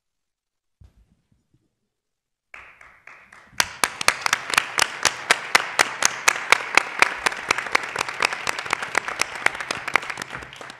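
Applause from a seated group, starting about two and a half seconds in after near silence. One clapper close to the microphone stands out with sharp, even claps, about five a second, until the applause fades near the end.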